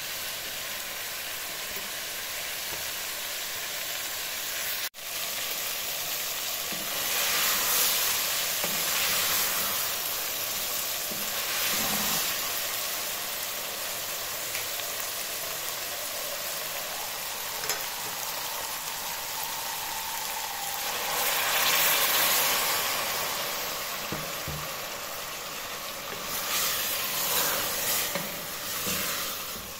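Potato and cauliflower pieces sizzling in hot oil in an aluminium pressure cooker as they are stirred with a wooden spoon. The sizzle swells louder a few times as the pieces are turned, and it cuts out for an instant about five seconds in.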